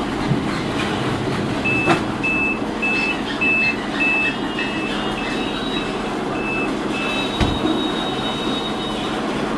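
Electronic warning beeps, about two a second, repeating for some five seconds over a steady vehicle rumble.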